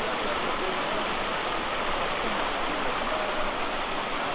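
Water rushing along a rocky forest stream: a steady, even hiss.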